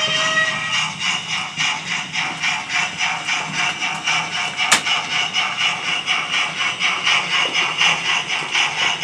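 Sound-decoder exhaust chuffs of a 00 gauge model steam locomotive running past, an even beat of about three chuffs a second. There is a single sharp click about halfway through.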